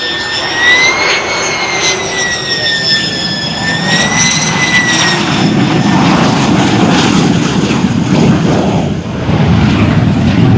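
Lockheed U-2S Dragon Lady's single F118 turbofan on a low fly-by pass. A high, wavering jet whine fades out about halfway through, and a deep jet roar builds as the aircraft goes by and moves off.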